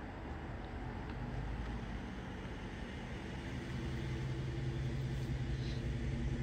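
Dodge Charger's engine running as the car rolls slowly up close, with a steady low hum that grows louder through the second half.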